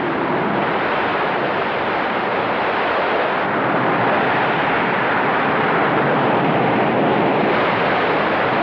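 Sound effect of the Eagle spacecraft's engines running at high power, a steady loud rushing noise with no change in level, as the craft strains against a magnetic pull.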